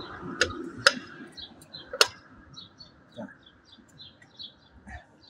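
Three sharp metallic clinks in the first two seconds as the steel rear axle is worked back through the moped's swingarm and rear wheel hub. Birds chirp rapidly throughout.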